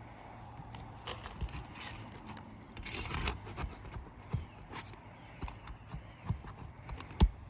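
Steel flat bar prying nails out of brittle asphalt shingles: irregular scrapes and knocks of metal on shingle, with one sharp knock near the end.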